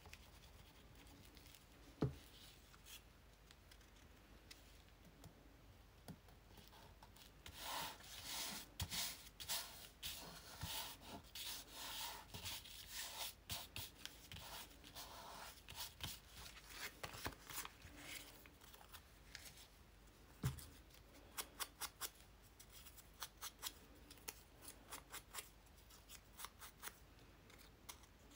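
Quiet paper handling on a tabletop: a sharp knock about two seconds in, then a stretch of scratchy rubbing and crinkling as a glued paper label is pressed down by hand, another sharp knock, and quick rustles as the paper is picked up and folded.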